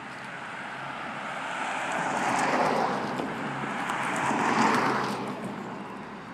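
Infiniti G35's 3.5-litre V6 with a stock rear muffler, 2.5-inch Y-pipe and resonated test pipes, driving past close by. The sound swells twice, loudest about four and a half seconds in, then fades as the car moves away.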